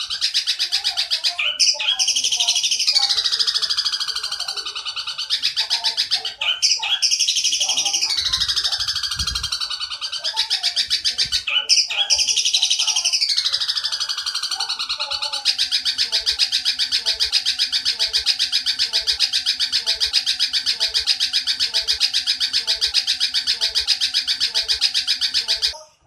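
Bird-song masteran track of long Eurasian tree sparrow–style chatter. Several squealing phrases fall in pitch, each a few seconds long. About halfway through they give way to one long, unbroken, very rapid high chatter that cuts off abruptly near the end.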